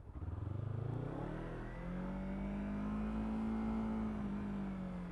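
Kawasaki Z300 parallel-twin engine pulling under acceleration, its pitch rising over the first two seconds, then holding steady and starting to ease off near the end.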